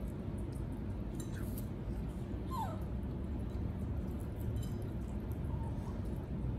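A few brief, high squeaks from small pets, the loudest about two and a half seconds in gliding down in pitch, over a steady low background hum.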